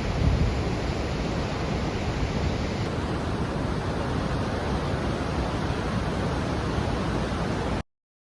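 Steady rushing roar of a large river waterfall, Urridafoss on the Thjórsá river, cutting off abruptly to silence near the end.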